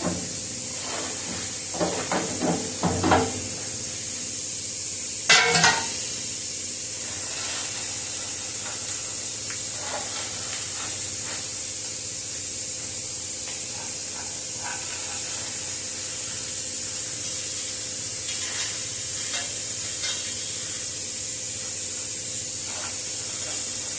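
Steady high hiss with a faint low hum beneath it, broken by a few short knocks and clatters in the first six seconds.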